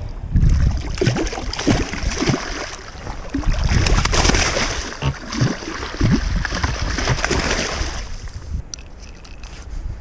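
Water splashing and sloshing against the shoreline rocks as a striped bass is let go and thrashes off, with wind buffeting the microphone. It settles down about eight seconds in.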